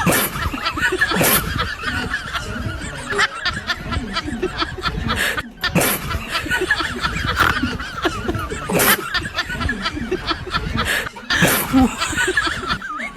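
People laughing and snickering.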